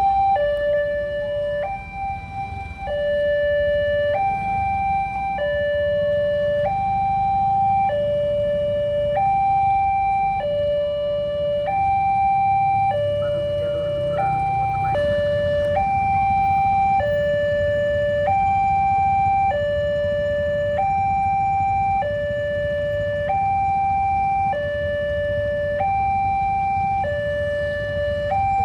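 Railway level-crossing gate alarm sounding a steady two-tone hi-lo siren, each tone held for just over a second, warning that a train is coming and the barrier is closing. A low rumble runs beneath it.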